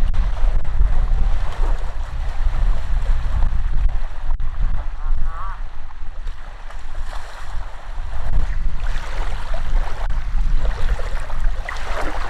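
Wind buffeting the microphone: a heavy, uneven low rumble that eases off for a moment around six to eight seconds in.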